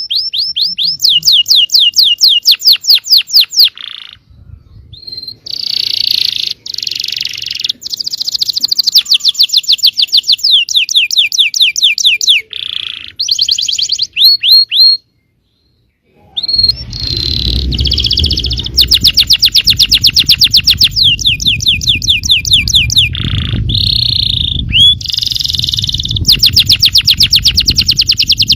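Yellow domestic canary singing long, fast trills of rapidly repeated notes, with rolls and short whistled phrases between them. The song cuts out completely for about a second and a half midway, and after it resumes a low rumble runs beneath it.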